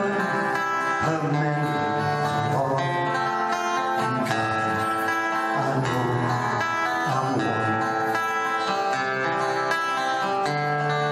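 Steel-string acoustic guitar strummed in chords, played live on stage with a steady strumming rhythm.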